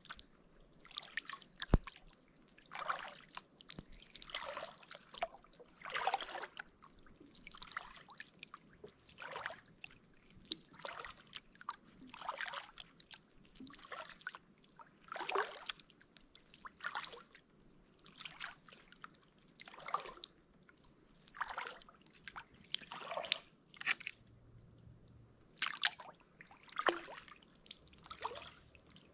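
Kayak paddle strokes in calm water: the blade dips and pulls with a short splash and drip about once a second, in a steady rhythm.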